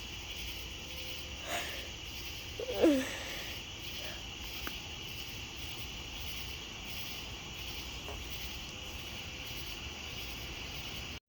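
Night insect chorus, a steady high trilling like crickets, with a brief falling vocal sound about three seconds in.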